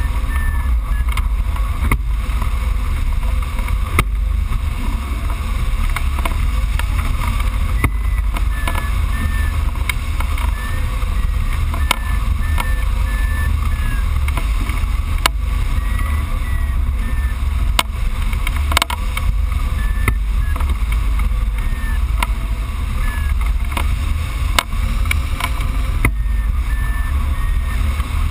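Wind rushing and buffeting over the microphone of a hang glider in flight: a loud, steady low rumble. Faint short beeps come and go throughout, from the variometer on the control frame.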